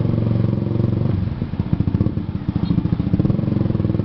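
Motorcycle engine running while being ridden, a steady fast pulsing whose pitch shifts a couple of times as the throttle changes.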